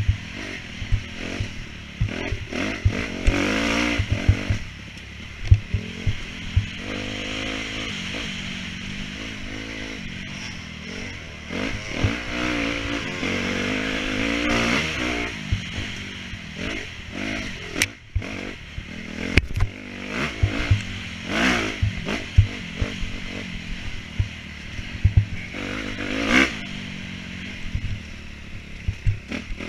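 Dirt bike engine revving up and down as it is ridden over an off-road enduro course, its pitch rising and falling every second or two, with frequent low thumps and clatter.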